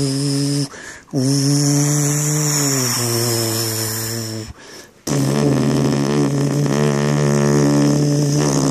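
A person imitating an airplane engine with their voice: a low, steady buzzing drone, broken by two short pauses for breath, about a second in and about five seconds in, with a fluttering lip-buzz in the later part.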